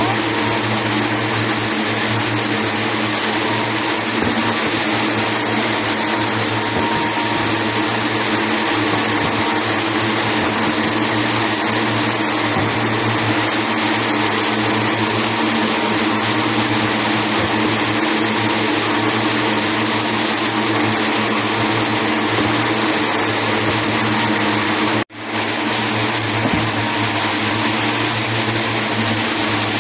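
Steady loud whir and hum of textile yarn spindle machines running in a mill, broken by a momentary cut-out near the end.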